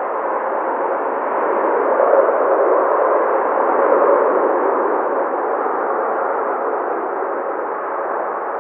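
Steady jet engine noise from a Boeing 787-9 on its landing roll, swelling in the first few seconds and then slowly dying away, heard with a thin, muffled tone.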